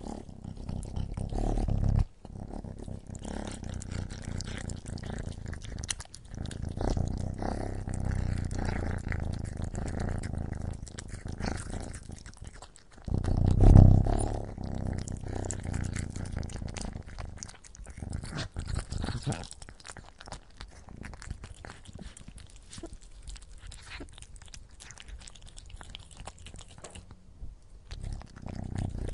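A cat making low-pitched vocal sounds, with a louder burst about halfway through.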